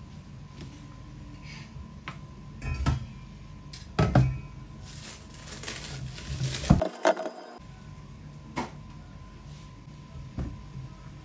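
Handling sounds at a stainless-steel kitchen sink: several sharp knocks and clatters of a cauliflower and utensils against the steel sink and bowl, and a stretch of crinkling partway through as the cauliflower's plastic wrap is pulled off.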